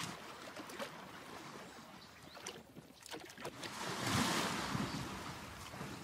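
A bull elephant wallowing in a mud bath, wet mud and water sloshing around it, with a louder swell of sloshing about four seconds in.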